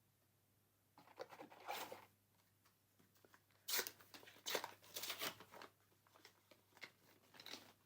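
Trading-card booster pack wrapper being torn open and crinkled, in several short rips and rustles.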